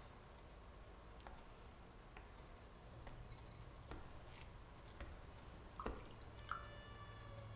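Quiet room tone with a few faint scattered clicks and taps. About six seconds in, soft music with long held tones begins.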